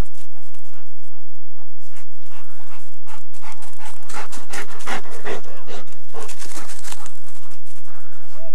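A dog panting, in quick rhythmic breaths.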